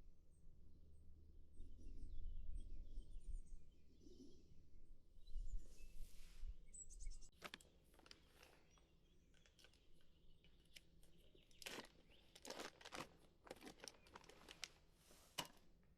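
Faint rustling and crinkling, with a run of sharp crackles and clicks through the second half. A low rumble, like wind on the microphone, runs through the first half.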